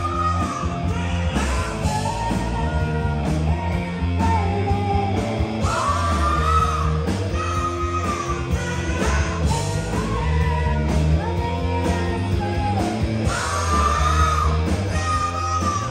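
Live rock band playing: electric guitars, bass and drums, with a lead voice singing over them.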